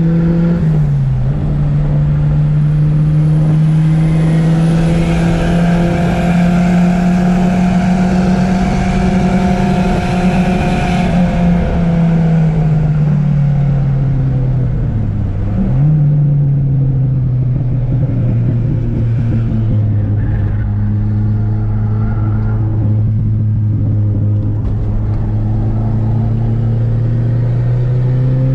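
Volkswagen Voyage's four-cylinder engine heard from inside the cabin under hard track driving. Its pitch climbs slowly through the first stretch, drops away, dips and jumps sharply about fifteen seconds in, then runs lower and climbs steadily again.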